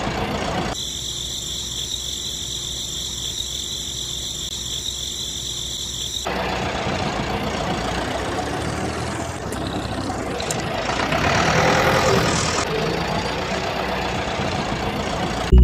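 A toy tractor's small electric motor running steadily, with a steady high whine from about one second in until about six seconds in.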